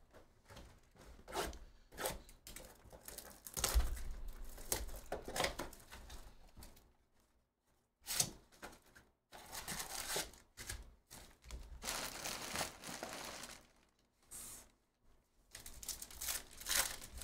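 Trading-card hobby box being opened by hand, its cardboard tearing, then a card pack's wrapper torn open and crinkling, with handling clicks and rustles throughout. A single heavy thump about four seconds in.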